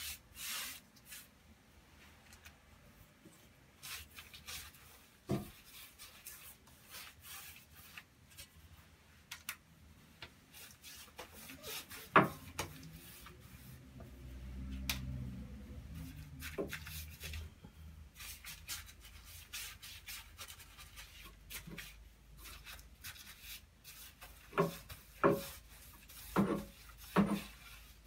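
A paintbrush rubbing and scraping along a wall in short strokes while white paint is cut in to the edge of wallpaper, with scattered light taps. A brief low hum sounds midway, and a run of sharper knocks comes near the end.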